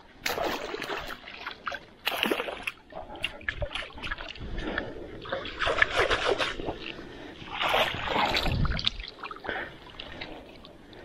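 Water splashing and streaming off a fish keepnet as it is pulled out of the river, in several separate bursts.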